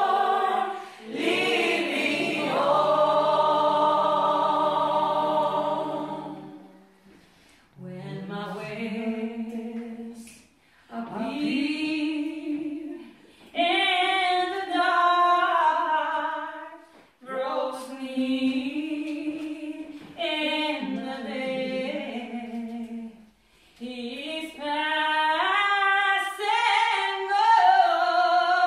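A small group of women singing a cappella, unaccompanied: a long held note about two seconds in, then shorter phrases with brief breaks for breath between them.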